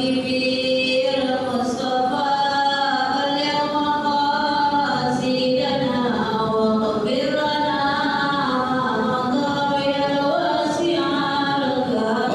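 A group of voices chanting Arabic devotional verses (sholawat) in unison, unaccompanied, in long drawn-out notes that glide from one pitch to the next.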